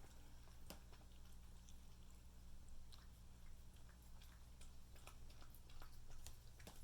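Cats eating soft baby food: faint, irregular wet smacking and licking clicks over a low steady hum.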